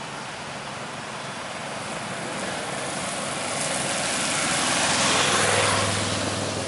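A bunch of road-racing bicycles rides close past: a rush of tyre and drivetrain noise that swells to its loudest about five seconds in and then eases. A low steady hum joins it near the end.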